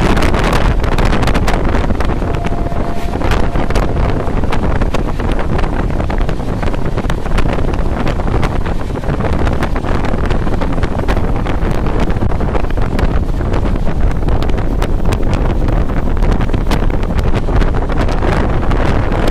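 Passenger train running at speed, heard from on board: steady rushing wind on the microphone over the rumble and rapid clatter of the wheels on the track.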